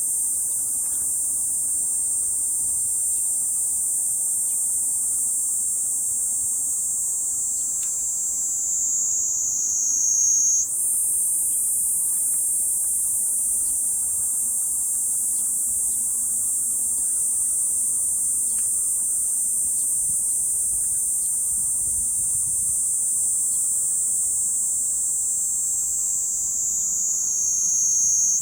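Cicadas singing: a continuous shrill, high buzzing drone. Twice the buzz slides lower in pitch, about ten seconds in and near the end, then snaps straight back up.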